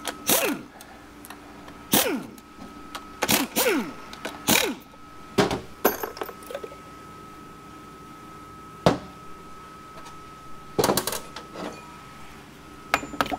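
Scattered clanks and knocks of tools and metal transmission parts being handled during a bench teardown of a 4L80E automatic transmission, some hits ringing briefly.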